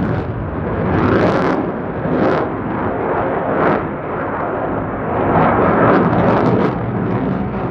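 Lockheed Martin F-35A Lightning II's single Pratt & Whitney F135 jet engine roaring overhead as the fighter pulls a tight, high-G turn. It is a continuous rumbling roar with sharp crackles, swelling louder about a second in and again around six seconds in.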